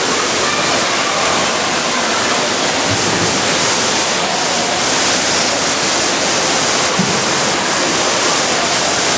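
Steady loud rushing of water in an indoor swimming pool hall, starting abruptly.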